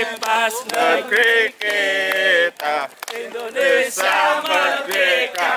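A group of voices chanting together in short sung phrases, with a longer held note about two seconds in.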